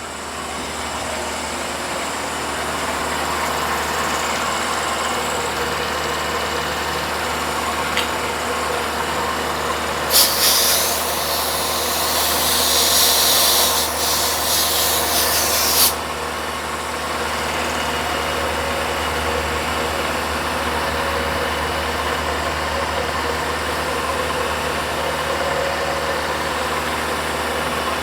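Milling machine running steadily, its hum building up over the first two seconds. A loud hiss covers it from about ten to sixteen seconds in.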